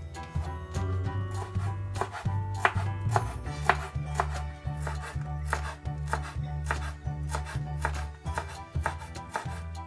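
Chef's knife chopping fresh dill on a bamboo cutting board: a quick, regular run of sharp blade strikes on the wood, over background music.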